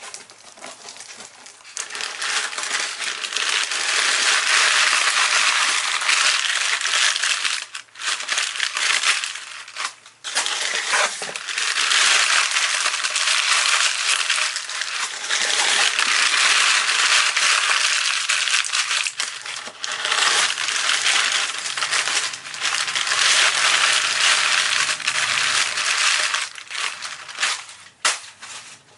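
Crumpled brown kraft packing paper being pulled out of a cardboard box and crushed in the hands. It makes loud crinkling and rustling in long stretches, with a few brief pauses.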